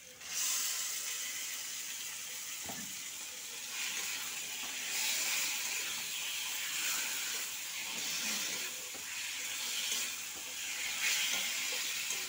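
Pieces of Bombay duck (lote fish) sizzling in hot oil and onion-garlic masala in a wok, the sizzle starting suddenly as the fish goes in and keeping on as it is stirred with a metal spatula. There is a single knock about three seconds in.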